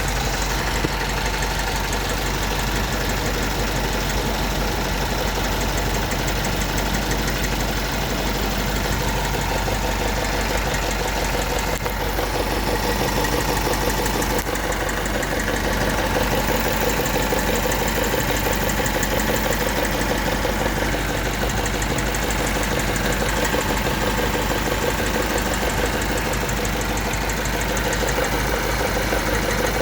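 Engine idling steadily with a fast, regular ticking or tapping noise in it, a strange noise which the owner says does not come from the valves.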